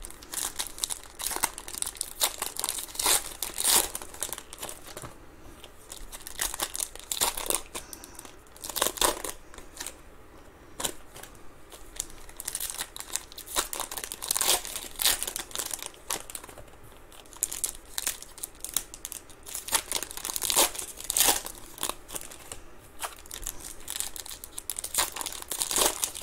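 Foil trading-card pack wrappers being torn open and crinkled by hand: irregular crackling and tearing that comes and goes in bursts.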